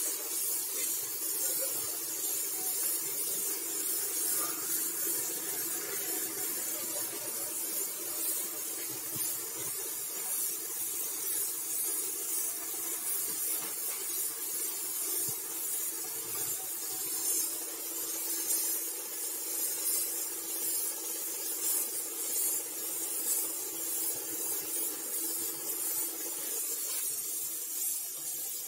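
Gravity-feed spray gun hissing steadily as compressed air atomises paint onto a car bumper, over a steady low hum.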